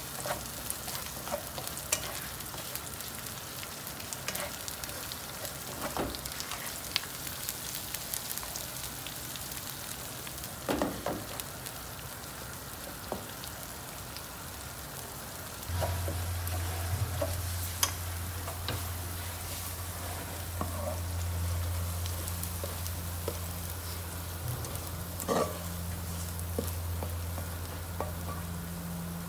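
Sambal stingray frying in a pan, a steady sizzle with scattered clicks from stirring. A low steady hum starts about halfway through.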